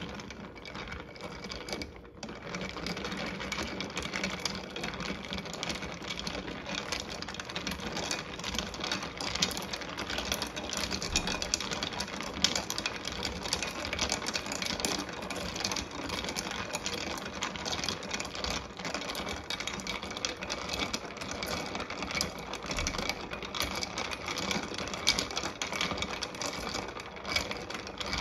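Ice cubes clinking and rattling against the glass sides of a pitcher of liquid as a spoon stirs it, a rapid, continuous clatter.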